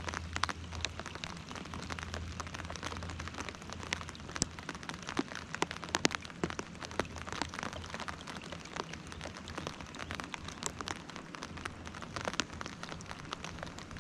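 Light rain falling on the lake and on the fabric spray deck of an Alpacka Mule packraft: a steady hiss with many sharp, separate drop taps.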